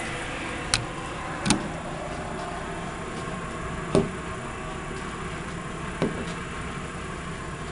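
An unexplained steady rushing drone that sounds like an aircraft turbine, a very strong wind or a highway, though there is no wind and no highway near, with a thin high squeak running through it. Four sharp ticks stand out, the first two close together and the last two about two seconds apart.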